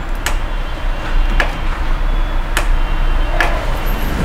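Four short, sharp clicks about a second apart over a steady low hum, as the LED TV is handled at its power controls while it is switched off and back on.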